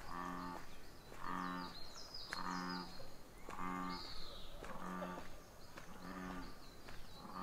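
A bullfrog calling: a deep, pitched croak repeated evenly about once a second, around six times.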